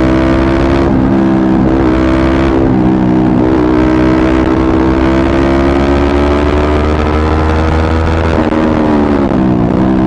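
Yamaha MT-15's single-cylinder engine through an aftermarket Akrapovic exhaust, pulling at a steady cruise with its note slowly rising. About eight seconds in the pitch drops sharply as the throttle comes off and the bike shifts down from fourth to third, then it picks up again.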